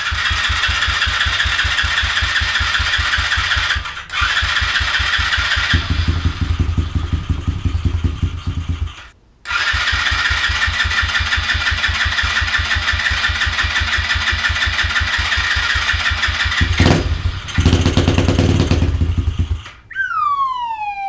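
125cc pit bike's single-cylinder engine running, heard in several short clips joined by cuts, with a brief gap about nine seconds in. Near the end a falling tone sweeps down.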